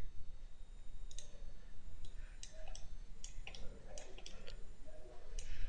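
Computer mouse clicking: a series of short, irregular clicks over a faint steady low hum.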